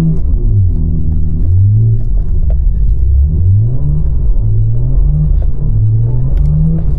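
BMW G80 M3 Competition's twin-turbo straight-six revving up and down over and over, its pitch rising and falling about five times, as the all-wheel-drive car is slid around with its wheels spinning on snow.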